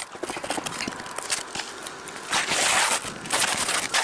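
Asphalt shingles being handled and slid across roofing underlayment: scattered light ticks and crackles, then two rasping scrapes of the gritty shingles in the second half, the first the longer and louder.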